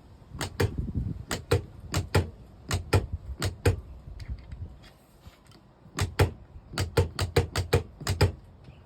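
A string of sharp clicks and knocks in two bursts, about a dozen in the first few seconds and another quick run near the end, from working the newly wired winch's connections and controls. The winch motor does not run: the wiring is not yet working.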